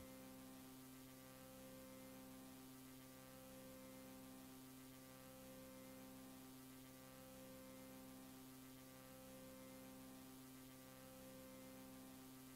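Near silence: a faint, steady electrical hum from the tape playback with light hiss, one low tone in it breaking off briefly about every two seconds.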